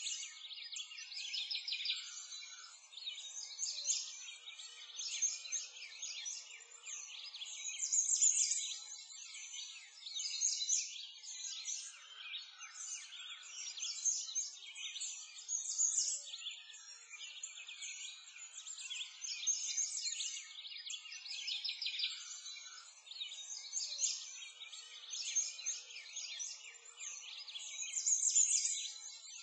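A chorus of songbirds chirping and singing continuously, many short overlapping calls and trills, swelling in bursts every few seconds.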